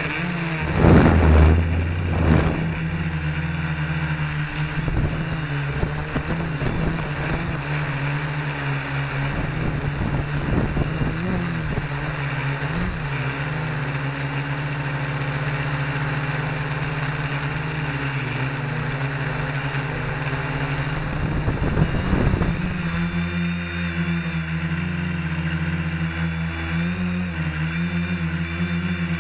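Homebuilt Gaui 330X quadcopter's motors and propellers humming steadily, heard from a camera slung under the airframe, with low buffeting thumps about a second in. The hum shifts in tone about 22 seconds in as the quad comes down low over the driveway.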